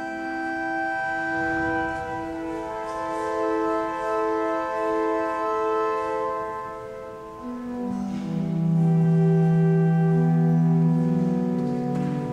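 Classical instrumental music from an ensemble performing in a stone cathedral: long held chords, with deep bass notes coming in about eight seconds in and the music swelling louder for a few seconds.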